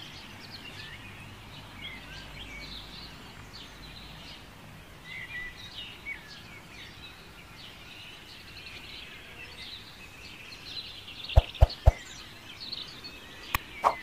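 Small birds chirping and twittering steadily in the background. Near the end come a few sharp clicks, three in quick succession and then two more.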